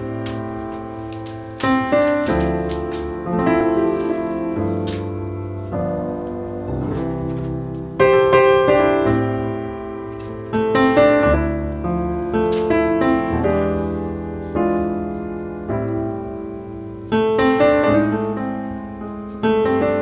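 Background piano music: slow, gentle notes and chords struck every second or two, each left to ring and fade.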